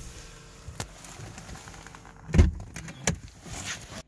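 Car door being handled: a few clicks and knocks, and a heavy thud about two and a half seconds in, as the door is shut.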